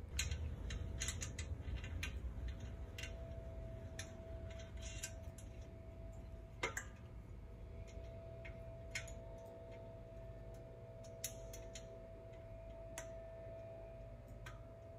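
Scattered light clicks and taps of bolts, flange nuts and a steel pedal bracket being handled and fitted by hand on a mower's foot deck, more frequent in the first few seconds. A faint steady tone runs underneath from a few seconds in.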